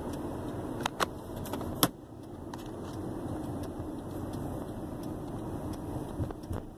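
Car running down the road, heard from inside the cabin: a steady low road-and-engine rumble. A few sharp clicks or rattles come about a second in and just before two seconds, with smaller ones near the end.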